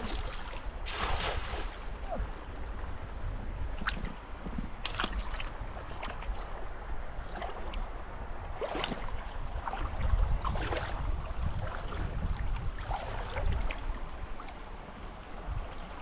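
Wind buffeting the microphone over open water: a steady low rumble with a hiss of moving water, broken by a few short, sharp noisy sounds.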